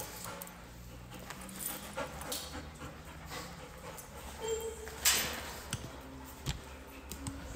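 Dog panting, with a short whine about four and a half seconds in, followed at once by a brief rushing noise.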